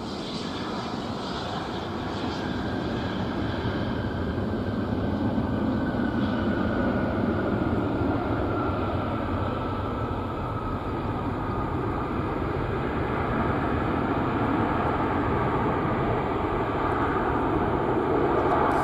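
Boeing 757-200F's jet engines after touchdown, a broad roar that grows louder during the landing rollout. A whine runs through it, slowly falling in pitch.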